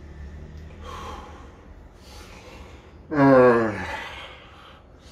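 A man breathing out heavily, then about three seconds in a long, loud voiced sigh that falls in pitch, a sound of dismay.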